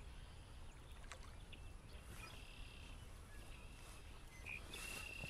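Faint wind rumble with birds calling: a few short, high, steady whistled notes in the second half.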